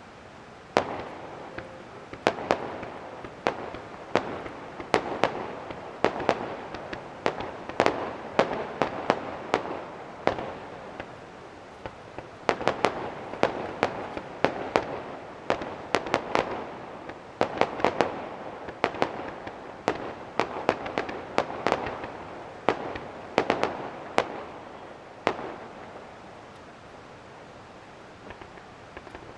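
Fireworks bursting in a fast barrage: many sharp bangs, often several a second, each trailing off in echo. The barrage thins out and stops a few seconds before the end.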